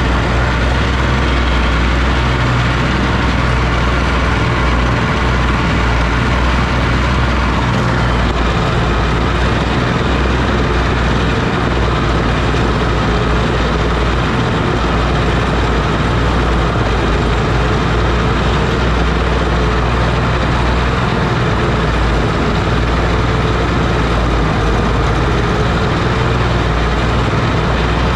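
Oliver OC-6 crawler tractor's engine running steadily, a loud low engine note with a dense mechanical din over it.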